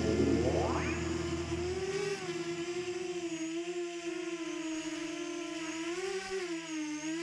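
ZMR-250 quadcopter's four brushless motors (Sunnysky X2204S 2300KV on 5045 props) whirring, the pitch holding steady but wavering up and down as the throttle changes. A sharp rising whine sweeps upward in the first second.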